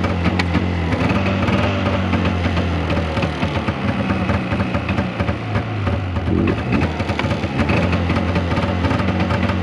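Polaris snowmobile engine idling steadily while it warms up.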